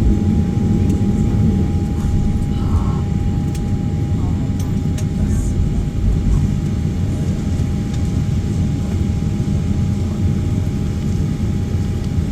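Cabin noise of a Boeing 737-800 taxiing: a steady low rumble from its CFM56-7B engines at idle and the airframe rolling, with a constant thin hum above it and a few faint clicks.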